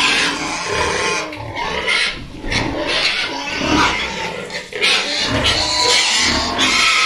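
Pigs squealing loudly in repeated drawn-out bursts, with short breaks between them.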